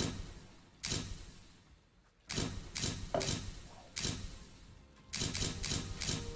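A series of heavy, sudden percussive hits, each ringing out briefly over a low rumble, coming closer together near the end: cinematic impact sound effects in a show's opening.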